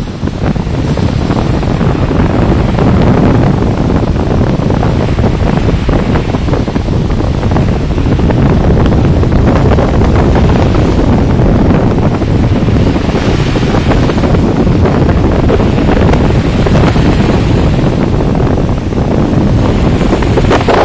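Wind buffeting the microphone, loud and rumbling, over the wash of surf breaking on a sandy shore.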